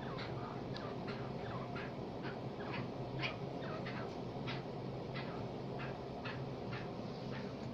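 Francolins giving short, sharp chip calls, repeated about two to three times a second, over a steady low hum.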